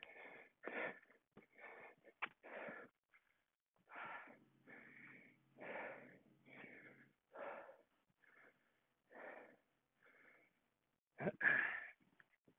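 A man panting hard from exertion: a steady string of noisy, rasping breaths, roughly one a second, with a louder, sharper breath near the end.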